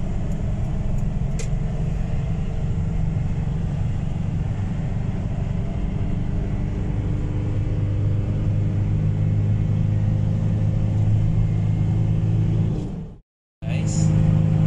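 Steady low rumble of a car's engine and tyres at highway speed, heard from inside the cabin. About thirteen seconds in, the sound cuts out completely for half a second, then returns.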